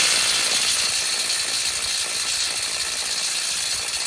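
Socket ratchet clicking rapidly and steadily while working a rusty downpipe bolt on a BMW N54 engine.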